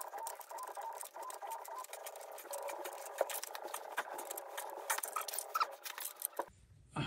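A wrench turning a threaded metal pipe fitting on a water supply pipe: rapid small metal clicks with creaking squeaks, and a couple of short higher squeaks near the end.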